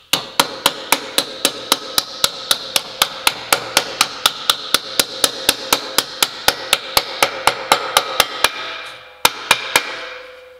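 A hammer strikes a steel forming tool held on a small sheet-metal repair panel clamped in a bench vise, with a ringing metallic clang about four times a second. This works a stiffening bead or speed-nut pocket into the panel. Near the end the blows stop briefly, then three last strikes come and the metal rings out.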